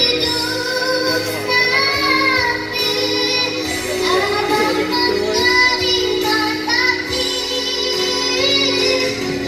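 A child singing in a high voice, holding and bending long notes over musical accompaniment.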